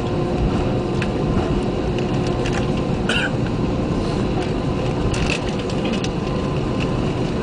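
Airbus A320 cabin noise while taxiing: the engines' steady low rumble and hum, with scattered light knocks and rattles and a brief high-pitched blip about three seconds in.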